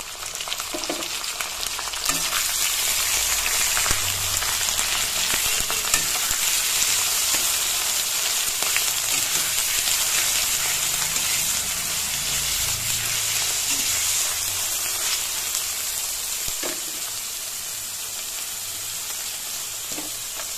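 Ground cauliflower paste sizzling in hot mustard oil in a karai, stirred with a spatula that now and then scrapes and taps the pan. The sizzle swells over the first couple of seconds and eases slightly toward the end.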